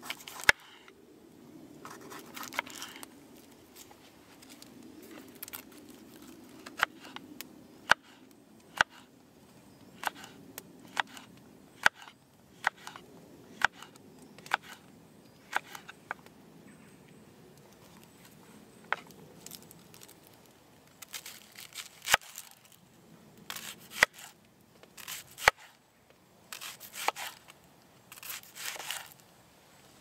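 Knife slicing red bell pepper and red onion over a wooden bowl: sharp taps of the blade against the wood at irregular intervals, mixed with short crisp cuts through the vegetables, coming in quicker clusters near the end.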